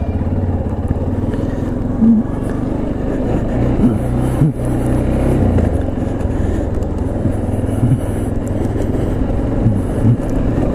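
Yamaha Ténéré 250 motorcycle's single-cylinder engine running as it is ridden, at a fairly steady pitch.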